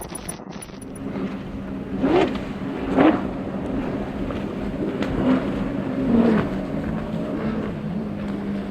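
Motorboat outboard engine running with a steady hum, its pitch swooping up and back down in short revs about two and three seconds in and again around five and six seconds.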